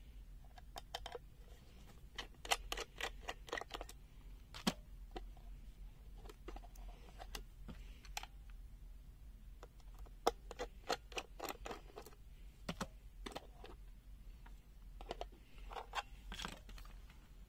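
Irregular small clicks and taps of a screwdriver working the battery-cover screw on a plastic multimeter case, with a cluster of plastic clicks near the end as the cover comes off.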